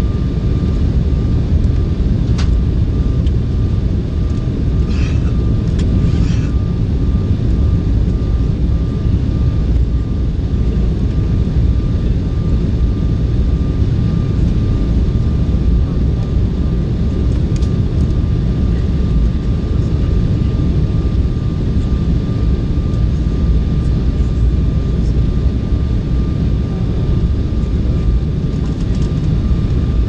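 Steady low rumble inside an Embraer 190 airliner's cabin in flight: the noise of its turbofan engines and the airflow, with a faint steady high tone throughout. A few faint clicks come about two to six seconds in.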